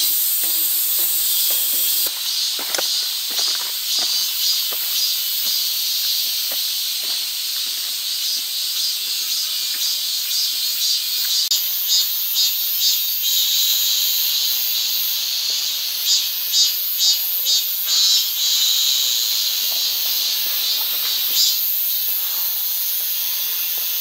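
Cicadas droning in a steady high-pitched buzz, with a run of pulsing beats from one of them through the middle part.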